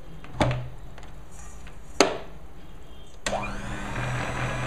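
Two sharp clicks, then the Philips 400 W stand mixer's motor switches on about three seconds in and runs steadily at low speed, its beaters turning in sponge cake batter.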